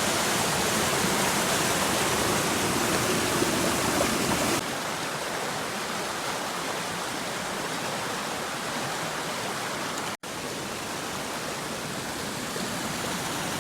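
Mountain stream water rushing steadily, a continuous hiss of flowing water. It drops somewhat in level about four and a half seconds in, and cuts out for a split second near ten seconds.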